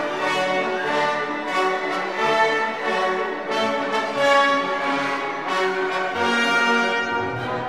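Orchestral music with bowed strings and brass, many held notes overlapping.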